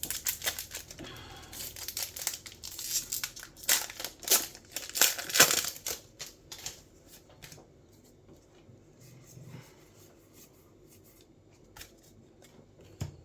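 Trading-card booster pack wrapper being torn open and crinkled by hand: dense crackling for about six seconds, loudest around five seconds in, then only faint handling noises.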